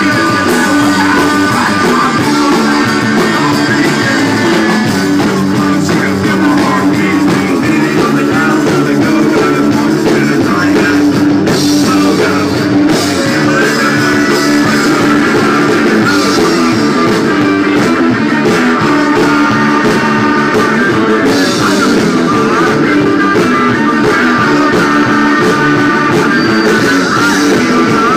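Live rock band playing loud, with electric guitar and drum kit going without a break.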